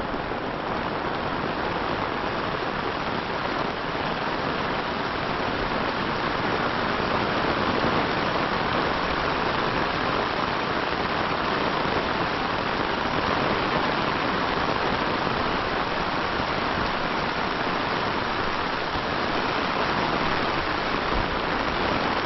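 Heavy rain falling steadily, an even downpour with no let-up.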